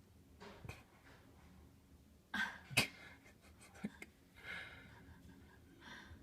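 A few short, breathy human noises, like sniffs or a stifled sneeze, with a sharper burst about three seconds in.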